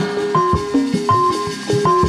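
Live jaipong-style music with kendang hand drums: a melody of steady held notes that step up and down in pitch, over a steady pattern of deep drum strokes.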